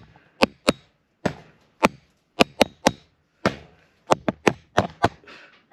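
A sword tapped repeatedly against the camera in a mock knighting: a string of around fifteen sharp, uneven knocks.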